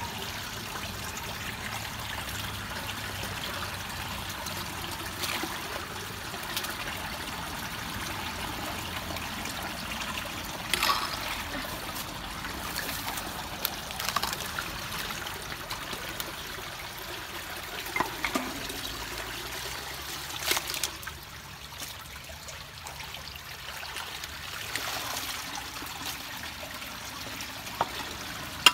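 Water trickling steadily into a clogged culvert as gloved hands pull grass and debris from its mouth, with a few short sharp splashes every few seconds.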